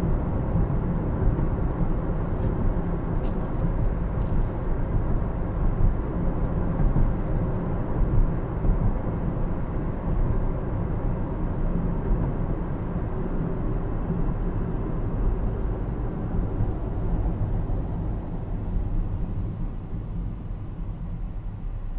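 Cabin noise of a 2020 Lexus ES 350 cruising at about 60 km/h, heard from the driver's seat: steady tyre and road rumble over its 3.5-litre V6. It eases off near the end as the car slows for traffic.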